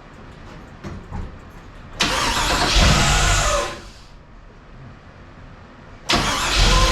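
A freshly rebuilt GM LS V8 being started: about two seconds in it fires up suddenly, runs for under two seconds and dies away. About six seconds in it fires again and keeps running.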